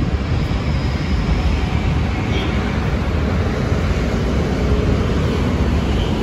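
Loud, steady rushing noise, heaviest in a choppy low rumble, typical of wind buffeting a phone microphone while the person holding it hurries along.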